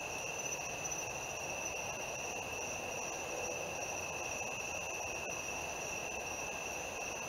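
Steady night chorus of insects such as crickets: an unbroken high-pitched trill at two pitches, over a fainter, lower hiss.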